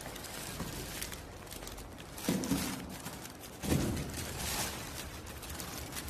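Packaging being handled: a cardboard box and the plastic wrapping around an electrical changeover switch rustle and crinkle as the unit is pulled out. There are two louder bumps, about two seconds in and again near the middle.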